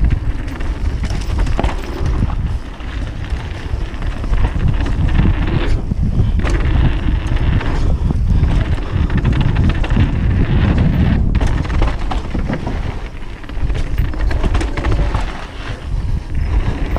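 Wind buffeting the action-camera microphone at speed, over the rumble of downhill mountain-bike tyres on a dirt trail and the rattle and clatter of the bike over bumps.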